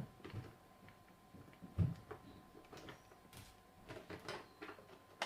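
Faint clicks and handling noise as the metal body pins are pulled out of an RC car's body posts, with one dull knock about two seconds in.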